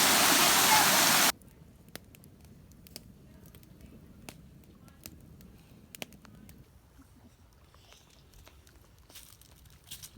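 Waterfall rushing loudly, stopping abruptly a little over a second in, followed by a quiet background with scattered faint clicks and ticks.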